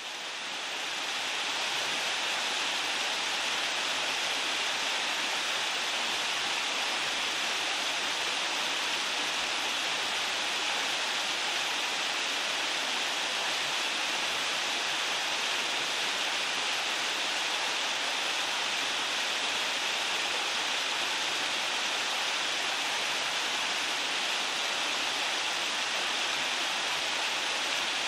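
Waterfall pouring steadily: an even, unbroken rush of falling water that fades in over the first second or two.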